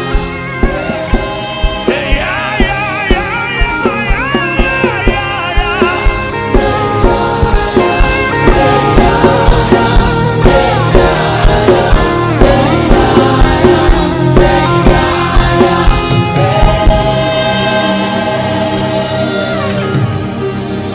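Gospel worship music: a sung melody with wavering, vibrato-laden pitch over a band with a steady drum beat of about two hits a second.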